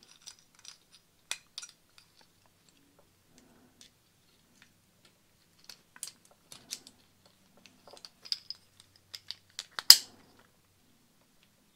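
Small plastic-and-metal clicks and taps as a bicycle brake lever is reassembled by hand and its pivot axle fitted back in. The clicks come in scattered clusters, with the sharpest snap about ten seconds in.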